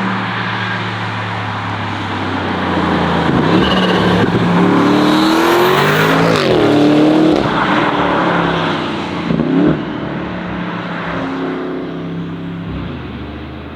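Tuned Audi RS6 C8's twin-turbo V8 with aftermarket exhaust under hard acceleration, its pitch climbing and dropping several times as it revs and changes gear, with a brief louder burst about nine seconds in.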